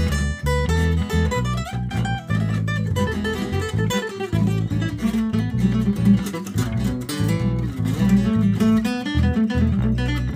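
Background music of plucked and strummed acoustic guitar, a continuous flowing piece.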